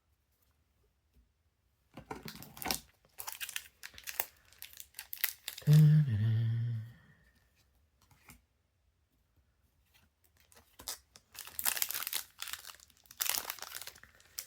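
Trading card booster pack wrapper crinkling and being torn open in crackly bursts, twice. About six seconds in, a short low voice hum dropping in pitch.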